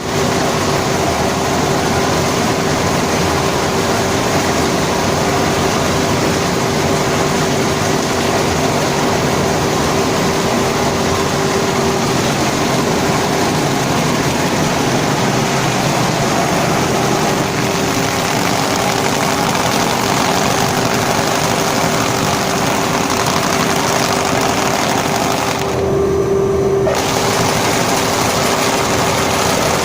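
Carpet dust-beating machine running: a steady mechanical hum under a dense, rapid clatter. About 26 seconds in, the sound briefly goes duller for about a second.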